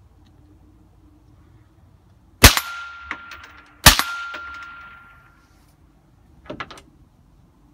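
Two shots from an FN PS90 short-barrelled rifle in 5.7×28mm, about a second and a half apart. Each shot is followed by a steady ringing tone and a fading echo. A few quieter clicks come near the end.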